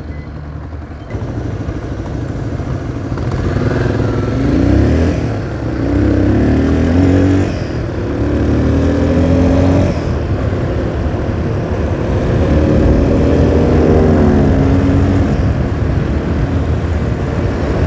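Motorcycle engine pulling away and accelerating hard. The pitch climbs in each gear and drops back at the upshifts, about three times, over wind and road noise.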